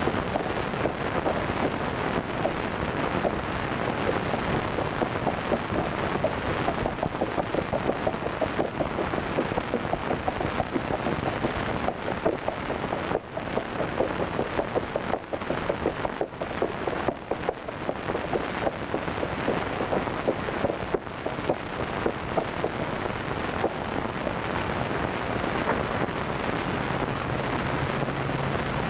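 Horse galloping: a dense, rapid clatter of hoofbeats over a heavy, rumbling hiss. A low steady hum comes in near the end.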